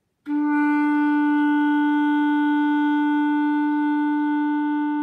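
Clarinet playing one long, steady note: a low-register written E, fingered with the thumb key and first finger. It begins a moment in and is held for about five seconds.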